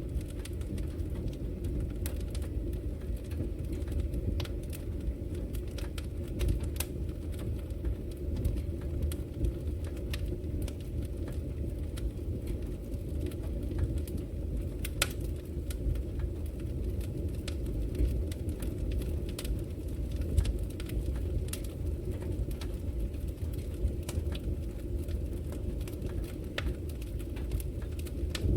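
Wood fire burning in a fireplace: a steady low rumble of the flames with irregular sharp crackles and pops of the burning logs.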